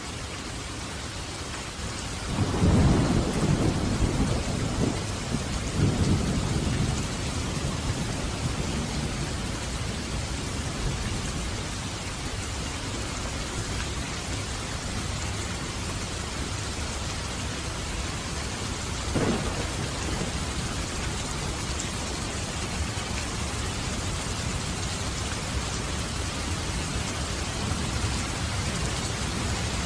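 Steady heavy rain with thunder: a deep rumble rolls in about two and a half seconds in and swells again a few seconds later, a sharp crack of thunder comes about two-thirds of the way through, and another rumble starts building near the end.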